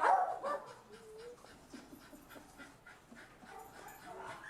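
Small shelter dogs in their kennels give a couple of loud yips at the start, then pant, with a short whine about a second in.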